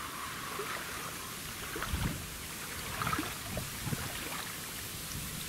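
Wind-driven small waves lapping against a reedy shore, with steady wind hiss, and a few short splashes and knocks as a small roach is reeled in to the bank, the loudest about two seconds in.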